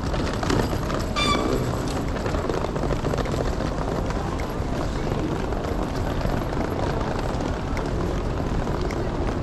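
Steady city street noise, mostly a low traffic rumble. A short high-pitched tone sounds briefly about a second in.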